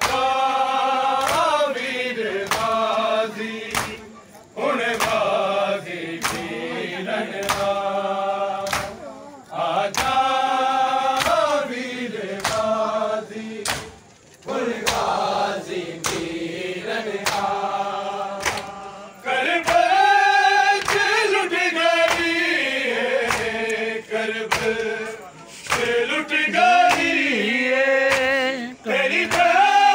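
A group of men chant a noha in unison, line after line, with short breaks between phrases. Under the singing, a steady beat of open-hand slaps on bare chests (matam) keeps time.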